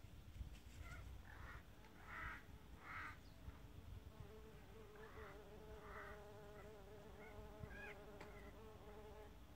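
A bee buzzing, a faint steady hum that sets in about four seconds in and holds.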